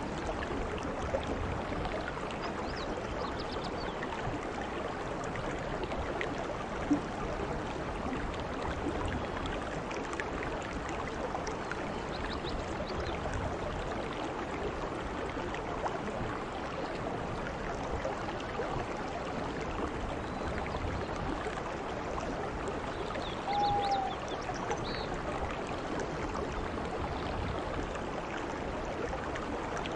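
Steady heavy rain falling on dense foliage and grass, an even hiss. A single sharp tick about seven seconds in, and a short high call a little before the 24-second mark.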